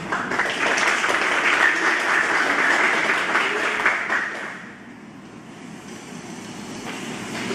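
Audience applauding, a dense patter of clapping that dies away about four and a half seconds in.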